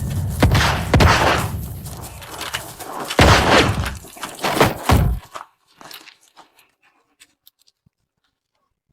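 Sci-fi television gun sound effects: a low rumble under heavy blasts about half a second and a second in, two more around three and five seconds in, then a few small mechanical clicks trailing off.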